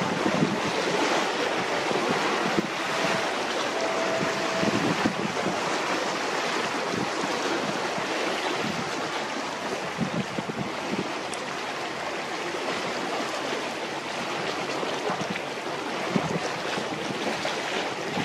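Wind buffeting the microphone over the steady wash of a choppy sea, rising and falling in gusts.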